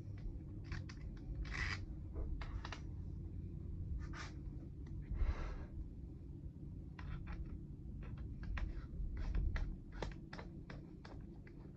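Light clicks, taps and a few brief scrapes of hand tools and plastic parts as a Stihl MS200T chainsaw is taken apart by hand, over a low steady hum.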